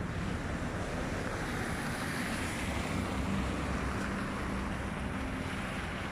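A car passing on a wet street, its tyre hiss swelling about two seconds in and then fading, over a steady low rumble and wind on the microphone.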